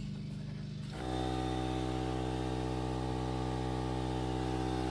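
Air compressor running with a steady hum, which grows fuller and a little louder about a second in.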